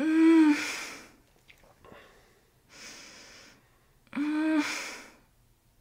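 A woman moaning in pain on two exhales, one at the start and one about four seconds in, each trailing off into breath, with a breathy inhale between them. The pain comes from firm hand pressure on tender, tense rib and chest muscles.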